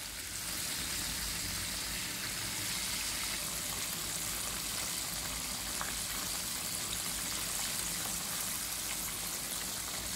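Batter-coated chicken pieces deep-frying in oil in a pan on a low flame: a steady bubbling sizzle.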